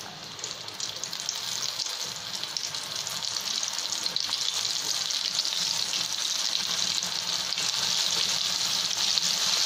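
Flour-coated mandeli (golden anchovy) deep-frying in hot oil: a steady sizzle with fine crackling that grows gradually louder as the fish fry.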